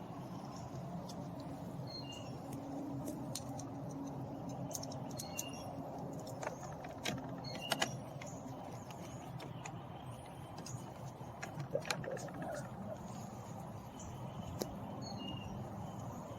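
Scattered small clicks and taps of a hand screwdriver and screws being worked into a car door panel, a little busier about halfway through and again near the end, over a steady background hum, with faint short high chirps every second or two.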